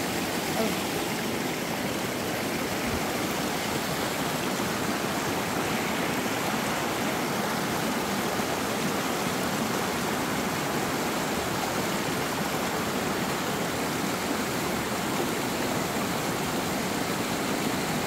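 Mountain stream running over rocks in a steady rush of water.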